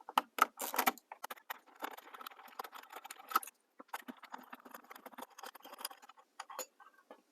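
Metal clicking, rattling and scraping as wires are disconnected and the old light's metal mounting bracket is unscrewed and taken off the wall. The handling noise thins out near the end.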